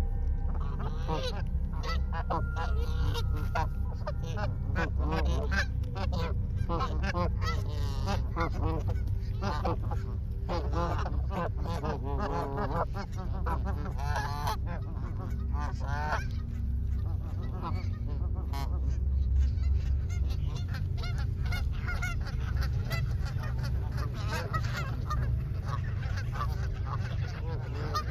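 A flock of Canada geese honking, many calls overlapping, thickest in the first half and thinning out later, over a steady low rumble.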